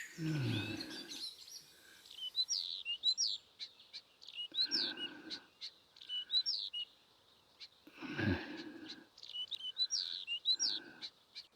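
Small birds chirping, a steady run of short, quick, falling calls, with a few brief low sounds near the start, in the middle and about eight seconds in.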